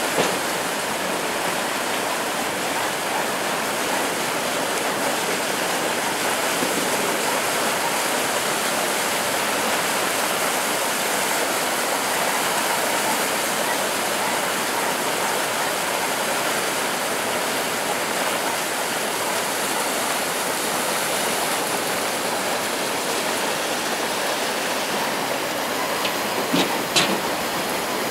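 Steady rushing of a swollen river in flood, its muddy current running fast and even. A couple of short knocks come near the end.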